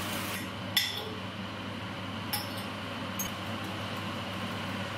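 Three light clinks of glass or kitchenware as condiment jars and bottles are handled during cooking. The first, about a second in, is the sharpest. A steady low kitchen hum runs underneath.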